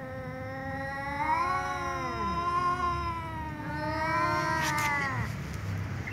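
Two cats, a tom and a ginger, yowling long drawn-out meows at each other, the calls wavering in pitch and overlapping. One long call fills the first three and a half seconds, and another follows about four seconds in.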